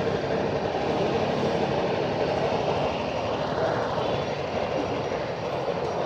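Honda Vario 125 scooter's 125 cc single-cylinder eSP engine idling with a steady, even running noise.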